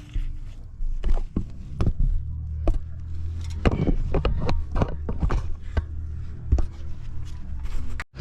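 Irregular clattering knocks, clicks and scrapes of handling noise as a camera is repositioned and mounted, over a low steady hum.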